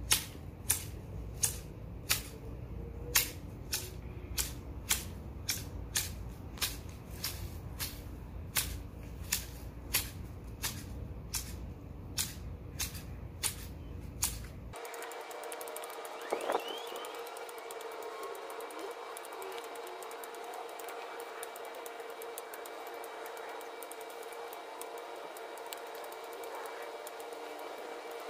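Hand topiary shears snipping through shrub branches, a sharp blade snap repeating steadily about every half second. About halfway through, this gives way suddenly to a faint steady hum with several held tones.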